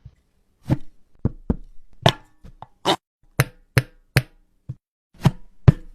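A run of about a dozen sharp knocks or chops at an uneven pace, with short silences between them, made as foley sound effects.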